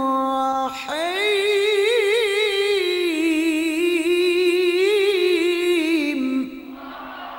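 A male qari chanting the Quran in the melodic tilawah style. A held note breaks off just under a second in, then a long ornamented phrase with rapid wavering pitch is sustained on one breath for about five seconds before it ends.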